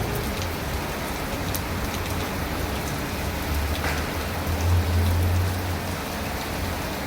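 Heavy rain falling steadily, a dense hiss with a few sharper drops, and a low rumble that swells briefly past the middle.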